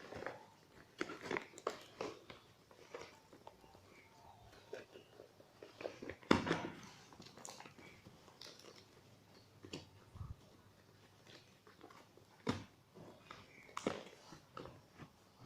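Irregular handling noise: scattered clicks, taps and rustles of packaging and a plastic airsoft pistol being handled during unboxing, with a sharper knock about six seconds in.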